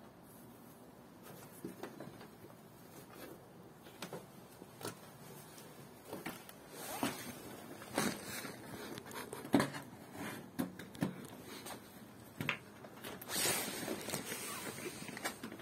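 Cloth rustling and scratching with irregular clicks as a tabby kitten claws at and climbs a person's jeans, busier in the second half.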